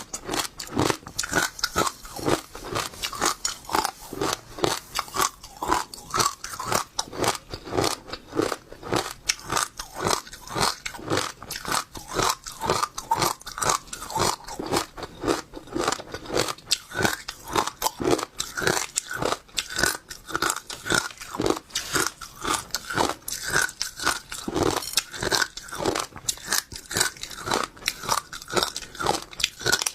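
Passion fruit seeds being bitten and chewed: a fast, steady run of crisp crunches, several a second.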